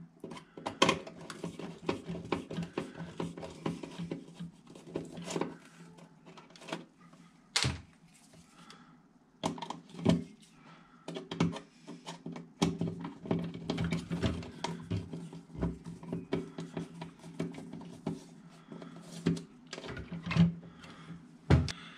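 A screwdriver working a small screw out of a plastic toilet-cistern flush-button fitting: irregular light clicks and scrapes, over a low steady hum.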